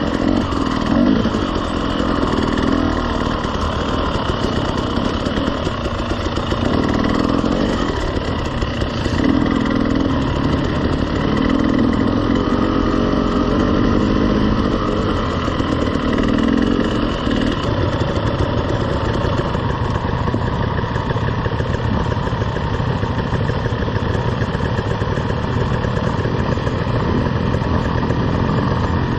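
KTM 300 two-stroke dirt bike engine running at low trail speed, the throttle opening and closing unevenly in the first half. It then settles to a steadier, idle-like running from a little past halfway as the bike comes to a stop.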